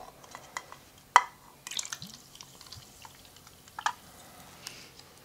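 Soda being poured from a glass bottle into small glasses, with dripping liquid and a few sharp glass clinks, the loudest about a second in and another near four seconds.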